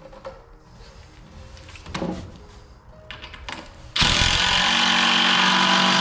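Cordless impact driver driving a screw into a fir 2x4. It starts suddenly about four seconds in and runs loud and steady, the screw going in easily in the softwood.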